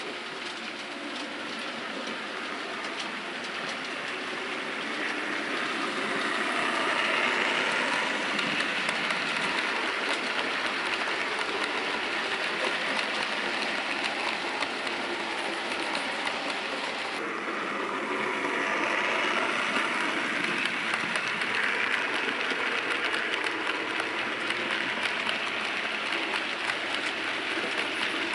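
Model train running along the layout track: the wheels of a rake of coaches make a steady rushing rattle with fine ticking, growing louder over the first several seconds as the train comes closer.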